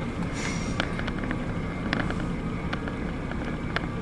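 Idling car engine, a steady low rumble, with a few faint clicks scattered through it.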